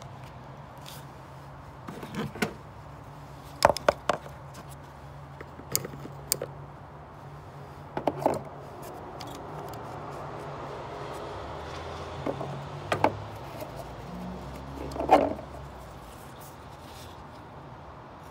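Hand work in a car's engine bay: scattered sharp clicks, knocks and scrapes, the loudest about four and fifteen seconds in, over a low steady hum.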